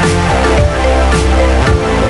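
Electronic dance music with heavy bass, a steady drum beat and stepped synth chords.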